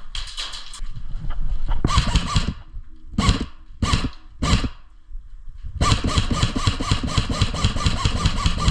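Airsoft rifle firing on full auto in bursts: a few short bursts, then a long sustained burst of rapid, evenly spaced shots starting about six seconds in.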